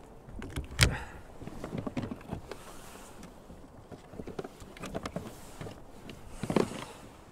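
Scattered light knocks and rustles of fishing tackle being handled aboard a kayak, with a sharper knock about a second in and another near the end.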